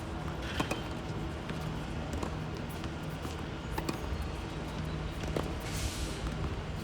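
Tennis rally: faint, sharp racquet-on-ball hits at an even pace, about one every second and a half, over a steady low background hum.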